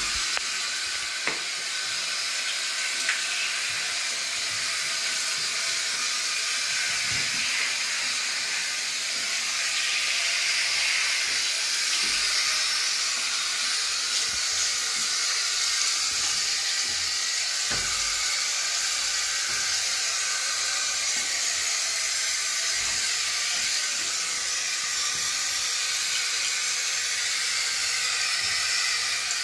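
Shower spray running steadily while a dog is bathed, an even hiss of falling water, with a few faint knocks.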